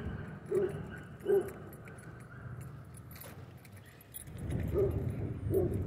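Light metallic jingling close by, like keys or dog tags, over an outdoor background. There are a few short, faint barks from distant dogs, and a low rumble of traffic swells up about four seconds in.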